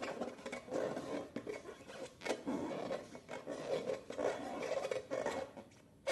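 Slime and rubber balloons being squeezed and worked by hand: irregular rubbing, scratching and crackling with a few sharp clicks.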